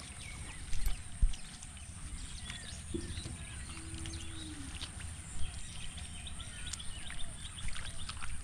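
Open-field ambience: birds chirping with many short, scattered calls over a steady high-pitched buzz and low wind rumble. Two dull thumps about a second in are the loudest sounds, and a single low, slightly falling call comes near the middle.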